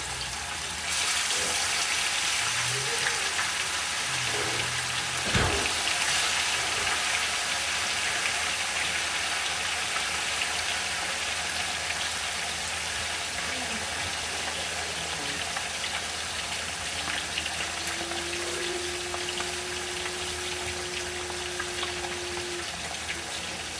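Food frying in hot oil: a sizzle that starts suddenly about a second in and slowly dies down.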